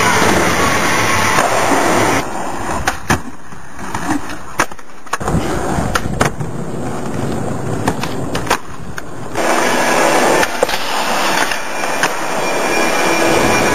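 Skateboard wheels rolling on a hard floor, with several sharp clacks as the board is popped and lands.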